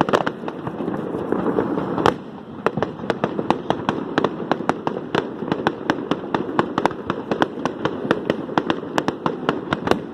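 Fireworks display: a rapid run of sharp bangs, several a second, over a continuous low rumble.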